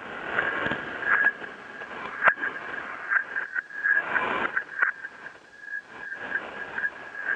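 Radio static and interference: hiss and crackle that swell and fade, with a steady thin whistle running underneath and a few sharp clicks. The sound is cut off at the top, like audio heard through a radio.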